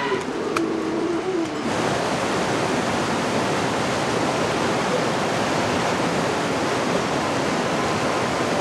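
A cow lowing briefly at the start, then, after a sudden change a little under two seconds in, the steady rushing of a mountain stream.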